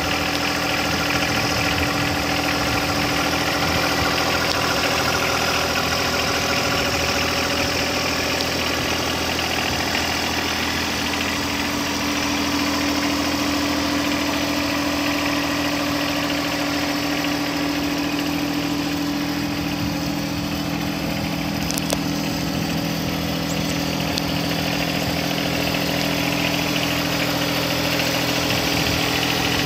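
John Deere 2025R compact tractor's three-cylinder diesel engine idling steadily.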